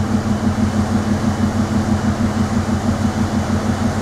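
The ferry's machinery running: a steady low drone with a fast, even pulse over a rushing background noise.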